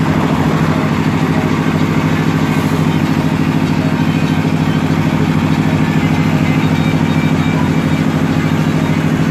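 A motor vehicle engine running steadily at an even, unchanging speed.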